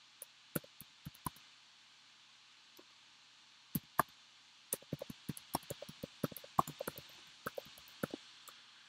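Computer keyboard being typed on: a few scattered key clicks in the first second, a pause of a couple of seconds, then a quicker run of keystrokes from about four seconds in.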